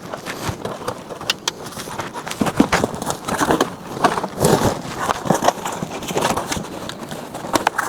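Irregular rustling, clicks and light knocks of packaging and loose parts being handled and searched through while an electric bike is unboxed.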